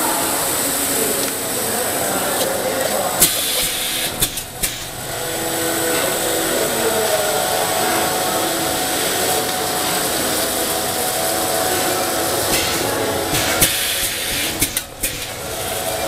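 Plastic cup crimping machine running with a steady mechanical noise and a faint high whine, with a few sharp clicks about three to four seconds in and again near the end.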